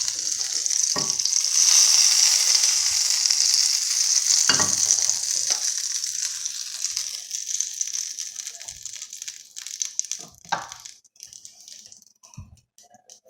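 A duck egg frying in melted butter in a pan: a steady high sizzle that dies down and stops near the end, the heat having just been lowered. A few light knocks sound along the way.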